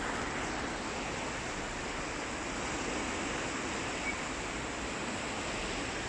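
Steady rush of the fast-flowing Kunhar River's water.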